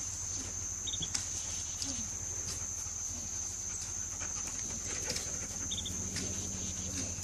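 Insects trilling steadily at a high pitch, with scattered faint clicks and two brief high chirps, about a second in and near the six-second mark.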